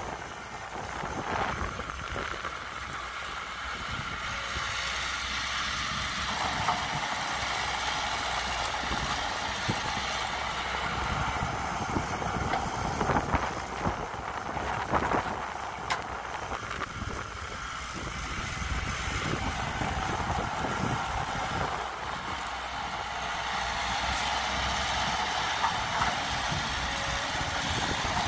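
Caterpillar hydraulic excavator's diesel engine running under working load as it digs and swings, its level rising and falling, with occasional knocks of the bucket in the soil.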